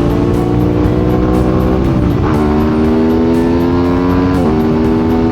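Two-cylinder motorcycle engine accelerating, its pitch climbing steadily and dropping sharply twice, about two and four and a half seconds in, as it shifts up a gear, over heavy wind rumble.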